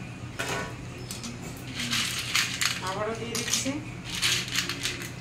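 Metal wire skimmer clinking against a frying pan and steel plate, with short bursts of hot oil sizzling as papad fryums go into it. The clinks and sizzles come thick and fast from about two seconds in.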